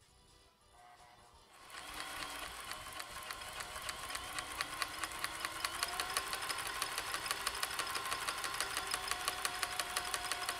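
Vintage Janome Combi DX 502 running on its serger/overlock side, starting up just under two seconds in and stitching steadily with a rapid, even clicking as it overlocks a fabric edge.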